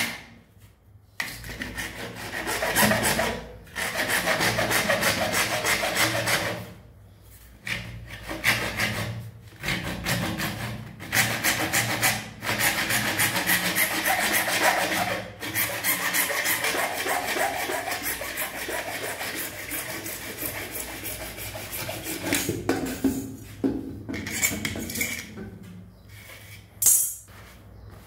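Hand-held hacksaw blade sawing through a PVC drain pipe, in long runs of quick back-and-forth strokes broken by short pauses.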